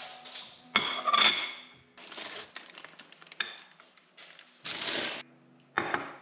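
Crockery handled on a granite kitchen counter: a ringing clink about a second in, then knocks and a short scrape as a plate and a ceramic mug are set down.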